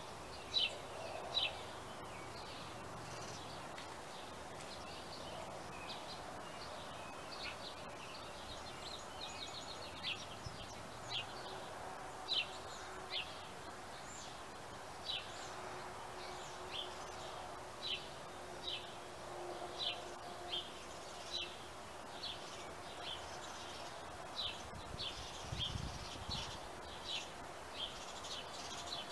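Songbirds chirping: short, high, down-slurred chirps repeated about once or twice a second, over a steady background noise.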